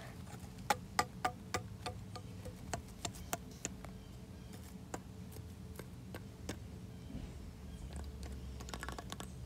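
Small plastic toy figures tapping on brick pavers as they are hopped along: a run of light, irregular clicks, a few a second, that thins out after about six seconds. A low steady hum lies underneath.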